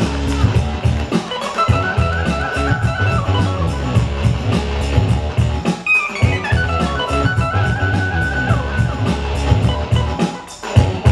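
Break music with a steady drum beat and guitar, played loud for the dancers; it drops out briefly near the end and comes back in on a hit.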